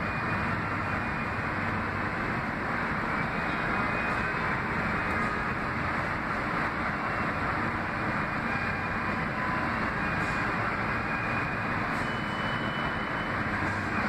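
R46 subway train approaching through the tunnel: a steady, even rumble echoing along the underground platform, with a brief faint high tone near the end.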